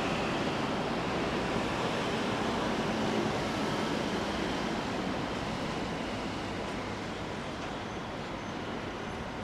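Steady outdoor city noise: an even rumble and hiss with no distinct knocks or tones, easing slowly over the seconds.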